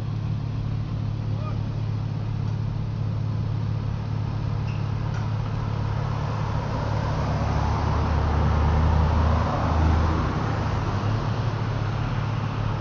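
Work-truck engines idling with a steady low hum, while a car drives past close by, loudest about three quarters of the way in.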